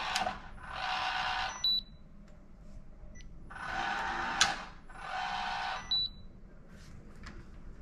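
Schlage Encode Wi-Fi smart deadbolt's motor whirring as it drives the bolt, in runs of about a second, and a short high beep from the lock after each pair of runs; this happens twice.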